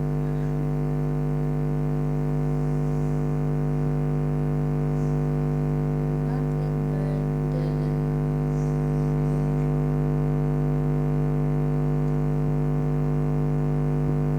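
Steady electrical drone made of several fixed pitched tones, its pitch and level unchanging throughout.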